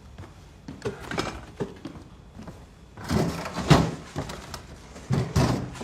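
Kitchen cupboard doors and drawers being opened and shut during a search, a few light knocks and then heavier clattering knocks.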